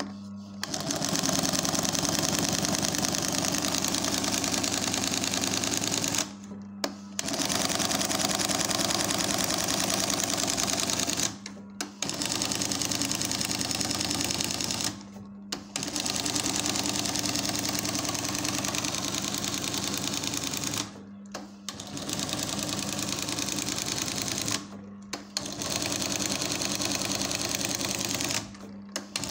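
Cornely chain-stitch embroidery machine running at speed, stitching with a steady rapid clatter over a motor hum. The stitching breaks off briefly about six times.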